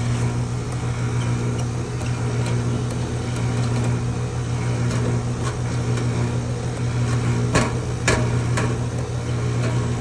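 Heat pump outdoor unit running during a pump-down, its compressor giving a steady low hum with a fan rushing behind it. Two sharp clicks come about seven and a half and eight seconds in.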